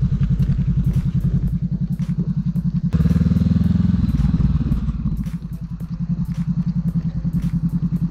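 Motorcycle engine running at low speed, a close, evenly pulsing exhaust note. It picks up as the throttle opens about three seconds in, then eases back toward a low-speed pulse a little after five seconds.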